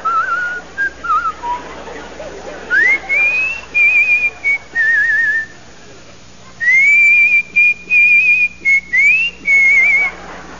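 A person whistling. A few short notes come first, then two phrases that each swoop upward into high, warbling held notes, with a short pause between the two.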